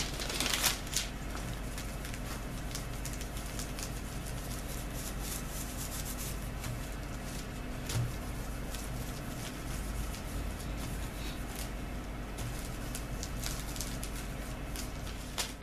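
Faint, irregular rubbing and dabbing of a piece of mesh pressed over plastic film onto decoupage paper, fixing the paper in place on the glue, over a low steady hum.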